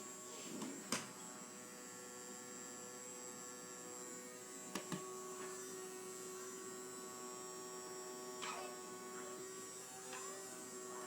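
Vacuum cleaner motor running with a steady hum, with two small knocks about halfway through.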